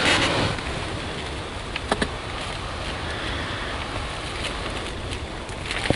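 Steady wind rumble on the microphone, with a few faint clicks about two seconds in and again near the end.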